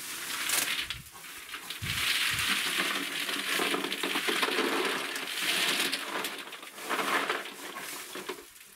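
Walnuts in their shells pouring out of a woven sack into a plastic bucket: a dense clattering rattle in a few bursts, the longest lasting about four seconds, with the sack rustling.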